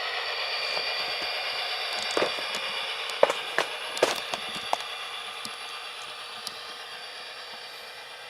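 A model diesel locomotive's Tsunami sound decoder plays a GP40 diesel engine sound through small speakers, so it has almost no bass. A few sharp clicks come between about two and five seconds in, and the sound gets gradually quieter toward the end.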